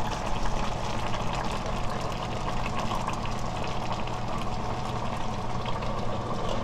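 Red braising sauce bubbling steadily in a pot of braised hairtail and potatoes, over a constant low hum.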